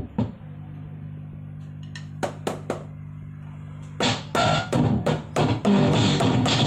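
Drum sounds from a Roland SPD-20 percussion pad being struck and heard through an amplifier. There are two quick hits at the start and three more around two seconds in, then a fast, continuous drum-kit pattern from about four seconds. A steady low hum sounds underneath throughout.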